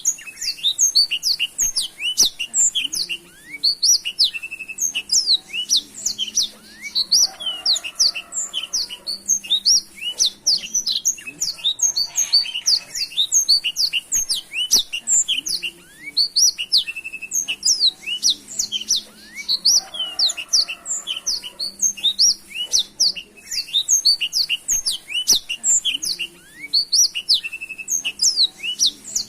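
Blackthroat (black-throated canary) singing a continuous, rapid twittering song of quick high chirps and trills without pause.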